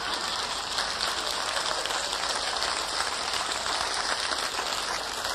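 Audience applauding with steady, even clapping in response to a comedian's punchline.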